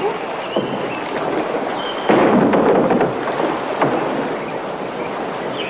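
Water splashing and sloshing as several men wade through the shallows around a wooden rowboat, with a louder surge of splashing about two seconds in. A few short, high chirps sound now and then.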